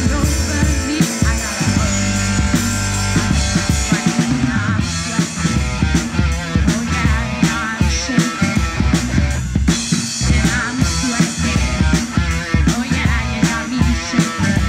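Live rock band playing an instrumental break with no singing: drum kit, bass and electric guitar, with a steady beat.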